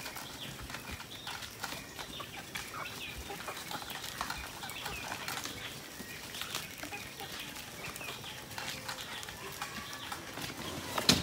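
Free-range chickens clucking and chirping in scattered short calls, with a few light knocks.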